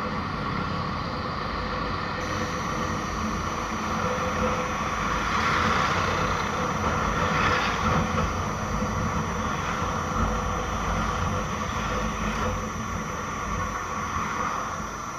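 Motorcycle ridden steadily through traffic: the engine running under a dense, even rumble of road and wind noise at the onboard microphone.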